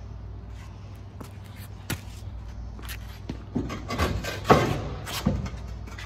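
Knocks and clanks of a steel rear bumper mount being worked loose and pulled off a Nissan Frontier's frame, scattered at first and then bunched together in the second half, the loudest about four and a half seconds in, over a steady low hum.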